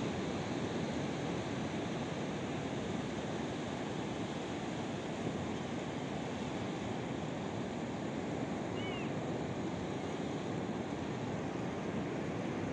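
Surf washing steadily over a shallow reef shore: an even, unbroken rush of water noise.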